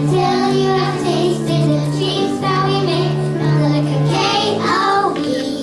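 Children singing with musical backing, a chorus from a stage musical, with sustained, wavering sung notes over a steady low accompaniment.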